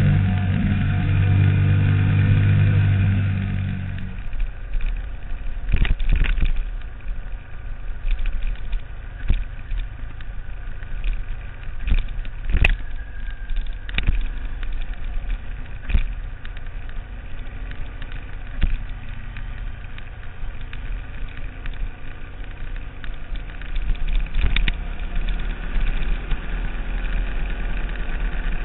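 Sport motorcycle engine running hard at steady revs, then falling away about four seconds in. After that, a steady rushing noise with scattered sharp knocks.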